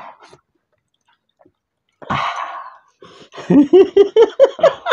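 A man laughing loudly in a quick run of short 'ha' bursts that climb in pitch, starting a little past the middle. A short breathy sound comes about two seconds in.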